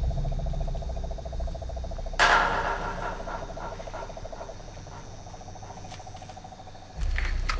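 Insects trilling with a steady fast pulse. About two seconds in comes a sudden sharp crash that rings away over a second, and near the end a low rumble rises.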